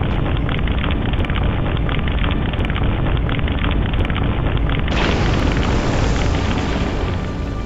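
Explosion sound effect: a long, steady rumble with fast crackle running through it, turning brighter and hissier about five seconds in.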